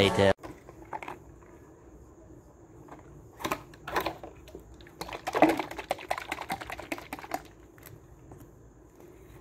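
Small clicks and rustles from a cardboard medicine carton and a plastic tonic bottle being handled, a few at first, then a quick run of them in the middle.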